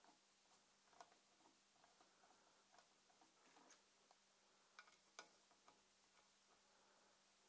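Near silence with a few faint, irregular clicks of a hand screwdriver's metal bit turning in the bolts that hold the ignition coil on a 49cc two-stroke pocket bike engine. Two clicks come close together about five seconds in.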